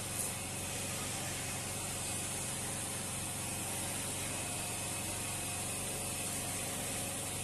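Flour being sifted by hand through a round metal sieve, shaken steadily over a bowl, over a steady hum and hiss.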